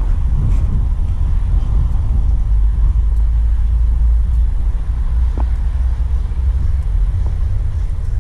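A steady, loud low rumble with no clear engine note, and a short faint squeak about five and a half seconds in.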